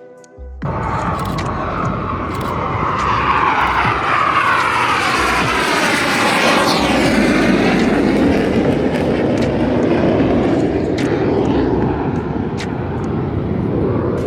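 BAE Hawk 209 jet passing by, its engine running loud with a whine that falls in pitch as it goes past. The sound cuts in suddenly about half a second in.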